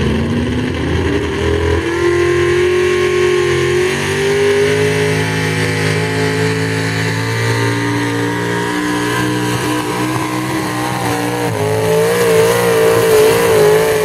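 Economy hot rod pulling tractor's 600-cubic-inch, single-carburetor engine at full throttle under the load of a pulling sled. It revs up over the first two seconds as the tractor launches, holds high revs with a slow climb, and its pitch wavers over the last couple of seconds.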